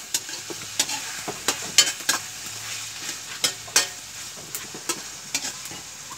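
A metal spoon scraping and clinking against a metal pan as sautéed bitter gourd and tomatoes are stirred, with irregular clicks. Under the clicks, a steady sizzle of the vegetables frying.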